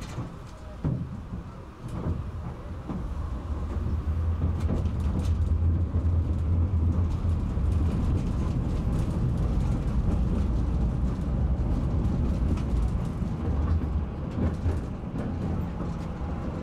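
Tram running along the track: a low rumble that builds over the first several seconds and then holds steady, with a couple of knocks in the first two seconds.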